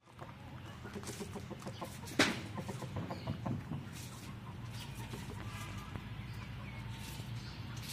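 Chickens clucking softly while pecking grain off concrete, with many short sharp taps of beaks on the ground over the first few seconds and the loudest tap about two seconds in. A steady low rumble runs underneath.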